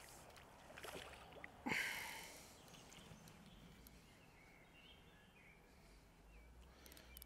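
A hooked carp splashing once at the surface about two seconds in, a sudden splash that dies away within a second, with a smaller splash just before it. Faint bird chirps follow over otherwise quiet surroundings.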